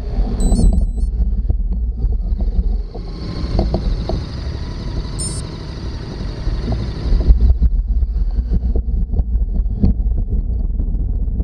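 Wind buffeting an action camera's microphone: a steady low rumble, with a broader hiss that comes in about three seconds in and drops away about seven seconds in.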